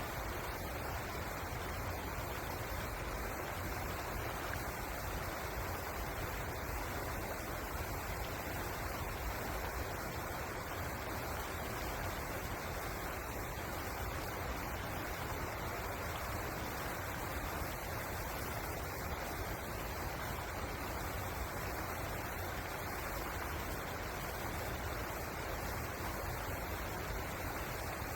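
River water rushing, a steady, even noise with no breaks or changes.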